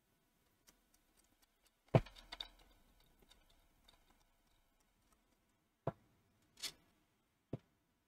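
Handling noises on a plastic multimeter case as small screws and a screwdriver are worked by hand: a sharp click about two seconds in, followed by light rattling, then three more taps near the end.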